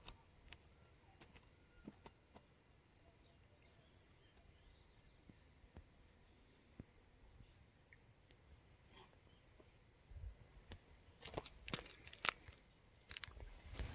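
A faint, steady high trill of night insects such as crickets, with occasional small clicks. From about ten seconds in, a short run of scuffs and knocks like footsteps on the rough bank.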